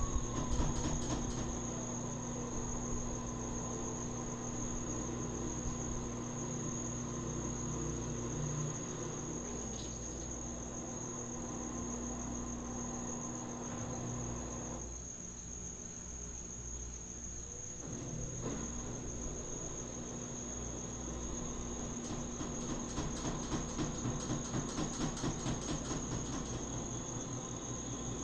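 Brastemp BWS24 washing machine draining: the drain pump runs with a steady hum, stops for a few seconds around the middle, then starts again.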